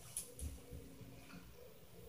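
Two faint sharp knocks about a quarter second apart, early on, over a low steady hum in a quiet room.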